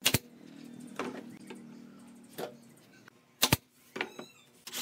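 Pneumatic brad nailer firing a nail into wood with a sharp crack right at the start. A few lighter knocks follow, and another sharp double crack comes about three and a half seconds in.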